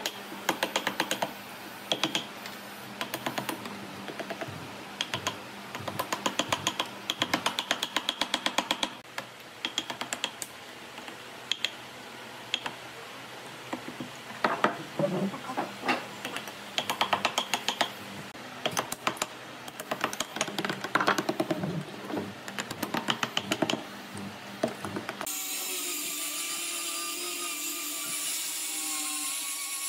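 Wooden mallet striking a steel chisel in quick runs of sharp taps, chipping away the rough edge of a log-slice table top. About 25 seconds in, an angle grinder with a sanding pad starts and runs steadily with a high whir, sanding the top.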